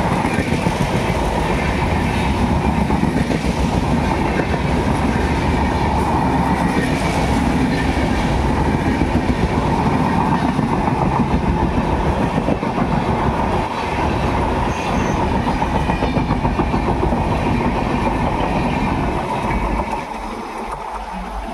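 Passenger train coaches running past close by at speed: a steady rumble with rapid clatter of the wheels over the rails. The noise drops off about twenty seconds in as the last coaches clear.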